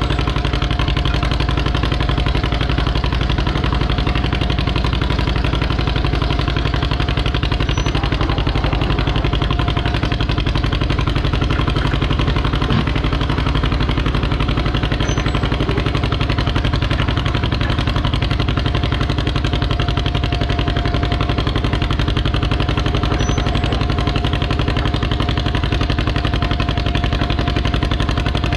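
Farm tractor engine idling steadily at close range, an even low running sound with no revving.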